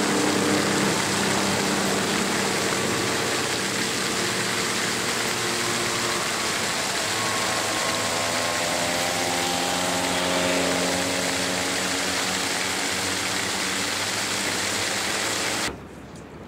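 An engine running steadily under a loud, even rushing noise. Its hum shifts in pitch around the middle, and the whole sound cuts off abruptly near the end.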